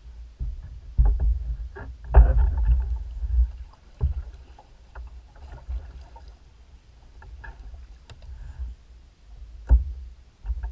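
Sit-on-top kayak moving on calm water: a low rumble with a series of short knocks and thumps against the hull. The loudest come about one and two seconds in, and again near the end.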